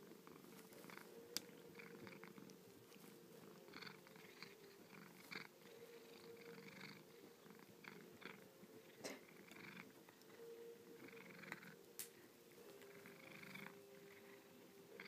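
Pet cat purring steadily while licking and chewing on an object: a run of short wet licks every second or so, with a few sharp clicks.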